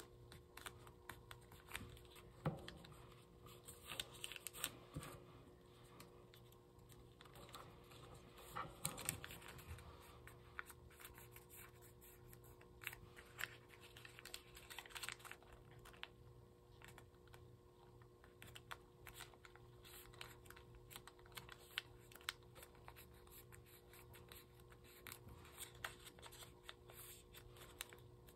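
A sheet of origami paper being folded by hand. It gives faint crinkling and scraping as fingers press and run along the creases, in scattered clusters of small crackles and clicks.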